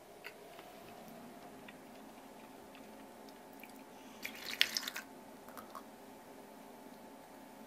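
Liquid being poured and dripping, a brief cluster of splashes and drips about four seconds in, over a faint steady hum.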